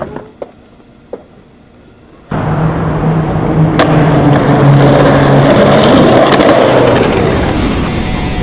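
Skateboard wheels rolling loudly over rough concrete, starting suddenly about two seconds in after two faint clicks, with one sharp clack of the board near four seconds.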